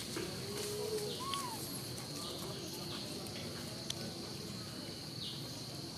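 Insects droning steadily at a high pitch, the drone dipping briefly every second or so, with a short faint chirp about a second in.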